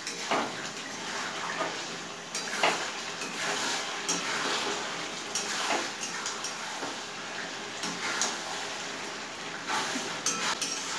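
Metal spatula stirring and scraping chicken pieces around a metal wok, with irregular scrapes and knocks against the pan over a steady sizzle of the thick masala frying. The chicken is nearly cooked and is being fried down (kasha) in its spices.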